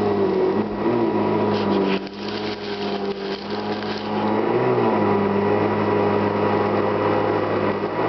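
Hoover Convertible upright vacuum cleaner running, its motor hum wavering in pitch. The level drops briefly about two seconds in, then comes back up to full.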